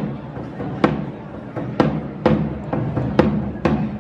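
Drum beating a march rhythm between the devils' spoken verses: loud strikes, mostly in pairs about half a second apart, over a low rumble, stopping shortly before the end.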